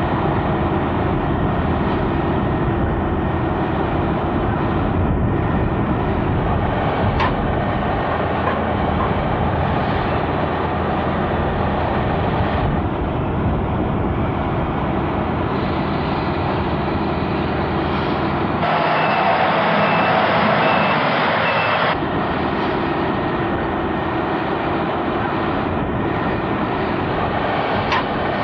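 Heavy construction machinery's diesel engines running steadily. A reversing alarm beeps several times in a row about two-thirds of the way through.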